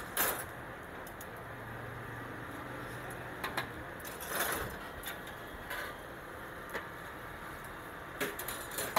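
Steel seekh kabab skewers clinking and clattering against each other and a steel counter as they are handled and laid down, in scattered clinks near the start, in the middle and near the end, over a steady background hum.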